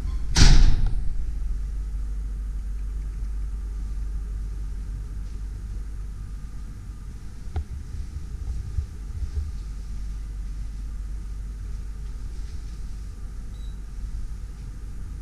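Steady low rumble of a handheld camera being carried up a stairwell, with a loud thud that rings briefly about half a second in, a sharp click about seven and a half seconds in, and a few soft bumps just after it.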